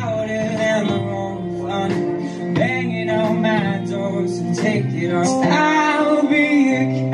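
Live band playing: a singer with an acoustic guitar, backed by electric guitar, bass guitar and drums.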